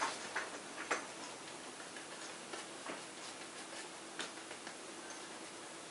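Irregular light taps and clicks of a paintbrush working acrylic paint on a stretched canvas, a few seconds apart, with a faint steady hum under them.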